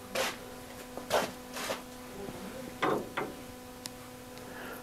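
Wood being handled on a workbench: about five brief scrapes and rubs as small pieces of toe rail are picked up and moved, over a faint steady hum.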